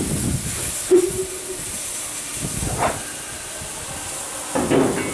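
Steam hissing steadily from class 50 steam locomotive 50 4073, with a sharp knock about a second in and a few short, fainter sounds later.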